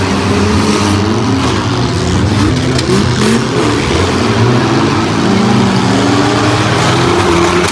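Several demolition derby cars' engines revving and running at once, their pitches rising and falling as the cars accelerate and ram one another, with a few sharp knocks that may be metal impacts.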